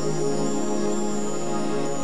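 Slow, sustained background music of held keyboard chords.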